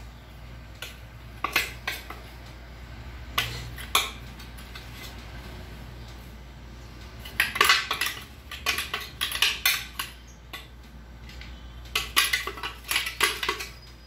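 Metal spoon clinking and scraping against bowls and a stainless-steel blender jar, with the jar set down and handled. Scattered clinks at first, then dense clusters of clatter in the second half.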